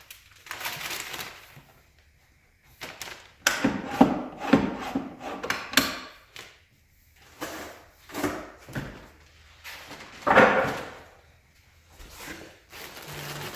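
Office chair parts being pulled out of a cardboard shipping box: knocks, scrapes and rustling of packaging in irregular bursts, loudest about ten seconds in.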